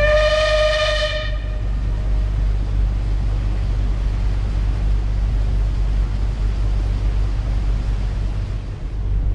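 Paddle steamer's whistle sounding one steady blast of about a second and a half, over a steady low rumble.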